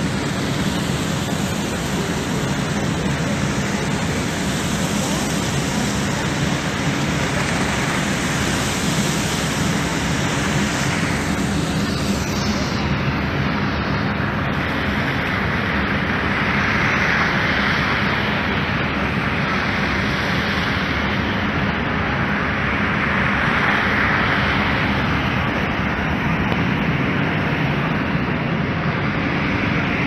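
Steady rushing city street noise in a snowstorm: wind and traffic blend into an even hiss with no distinct events, swelling slightly a couple of times.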